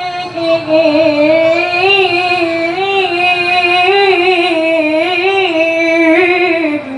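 A young male qari chanting a verse of the Quran in melodic recitation style through a microphone and stage loudspeakers. He holds one long ornamented phrase whose pitch wavers up and down, and it ends just before the end.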